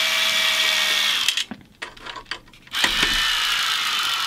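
Small cordless electric screwdriver spinning off the hex nuts on a banjo's tension hooks. It whines steadily, stops for about a second and a half with a few clicks, then runs again, its whine sinking in pitch near the end.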